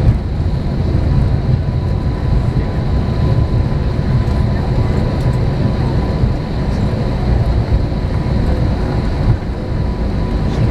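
Airbus A321 cabin noise while taxiing: a steady low rumble from the engines and the rolling undercarriage, with a faint steady whine above it.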